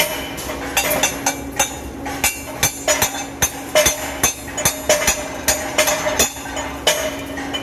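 Irregular sharp metallic taps and clicks, about two to four a second, some with a brief ring, over a steady low electrical hum.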